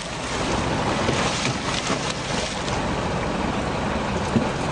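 Steady noise of a sportfishing boat's engine and water washing against the hull, with splashing beside the boat where a hooked fish is being led in on the line.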